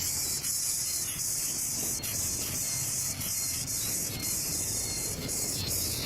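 Steady, high-pitched shrill of an insect chorus, pulsing slightly in strength, with a low rumble underneath.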